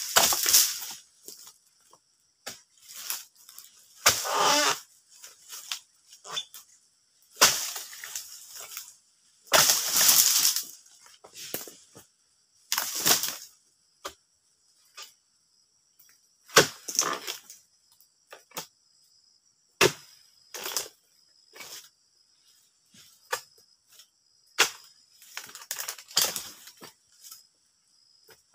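A long-poled cutting tool striking into the frond bases of a young oil palm again and again at an uneven pace, each stroke a sharp chop, a few followed by about a second of rustling fronds. Insects buzz steadily at a high pitch behind it.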